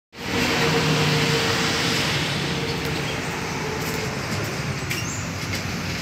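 Steady running of a distant diesel locomotive as a passenger train approaches the station platform, heard as a low continuous hum with a faint held tone in the first couple of seconds.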